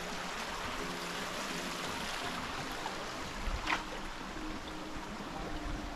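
Steady rushing of flowing water from a stream, with one short sharp tick about three and a half seconds in.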